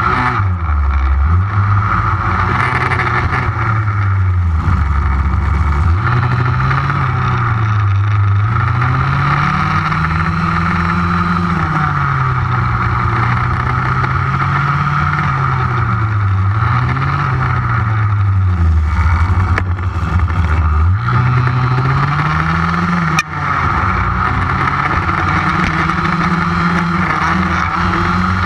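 Two-stroke petrol engine of an HPI Baja 5B 1/5-scale RC buggy running under way, its revs rising and falling over and over as the throttle is worked.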